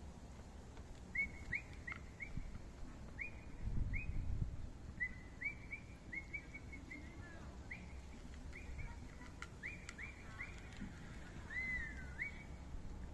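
A small bird chirping over and over, a string of short, quick notes with one longer falling note near the end. A brief low rumble about four seconds in.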